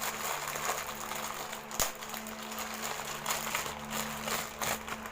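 Crinkling of plastic packaging being handled, with a few short rustles and one sharp click just under two seconds in.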